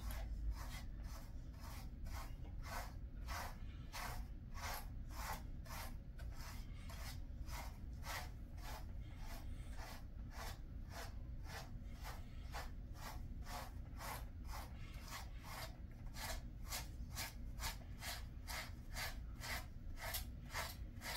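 A grooming brush being drawn through a Jindo dog's thick coat in quick repeated strokes, about two to three scratchy brush strokes a second.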